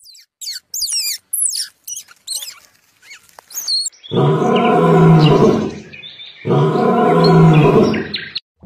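A squirrel's short, high-pitched chirps, several in quick succession, then a lion roaring. The lion gives two long, loud roars, the second starting about two and a half seconds after the first.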